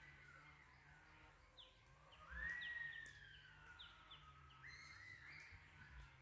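Faint birdsong: a long whistle that slides slowly downward in pitch, starting about two seconds in, with short falling chirps scattered around it.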